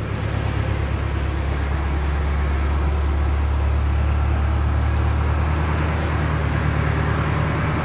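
Tractor engine and the tow-behind compost windrow turner it drives, running steadily as the machine works through a compost row, with a low engine drone under a steady mechanical rumble.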